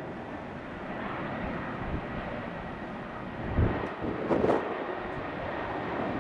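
Airbus A319-111's CFM56 jet engines heard from afar as the airliner flares low over the runway just before touchdown: a steady rushing noise with a faint high whine in the first half. A couple of gusts of wind hit the microphone about halfway through.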